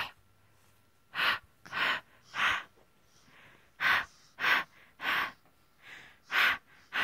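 A baby's quick, forceful breaths, huffing in sets of three about half a second apart with short pauses between: excited heavy breathing.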